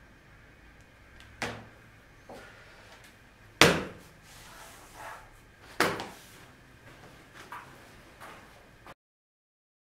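A few separate knocks on a timber workbench top as a hand comes down on it and a phone is set down on it. The loudest knock is about three and a half seconds in, and the sound stops abruptly shortly before the end.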